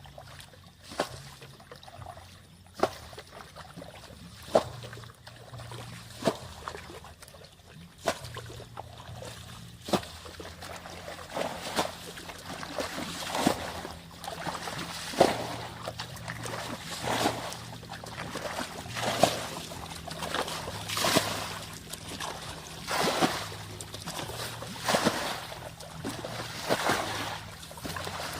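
Water splashing in a regular rhythm, about one splash every two seconds. About halfway through it becomes louder, fuller and more frequent sloshing, with trickling between splashes.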